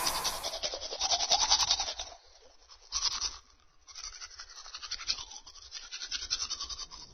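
Rapid back-and-forth scrubbing strokes, many a second: a run of about two seconds, a short burst after a brief pause, then a quieter run after another pause.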